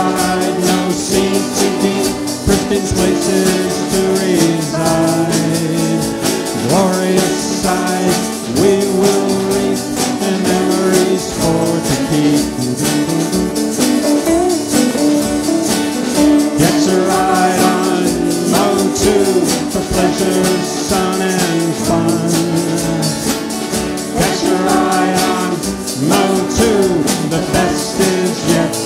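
A band playing a song with singing, guitars, drums and tambourine over a steady beat.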